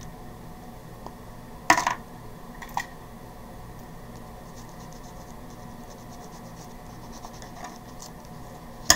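Small hard clicks of craft supplies being set down on a desk: one sharp click a couple of seconds in, a smaller one a second later, then another sharp click at the very end. In between comes faint, fine scratchy rubbing on paper as a bone folder is worked over freshly applied stickers.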